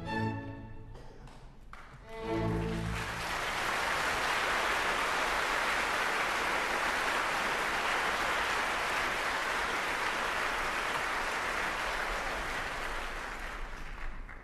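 An orchestra ends a ballet variation with closing chords. About two seconds in, a theatre audience breaks into steady applause that lasts some eleven seconds and thins out near the end.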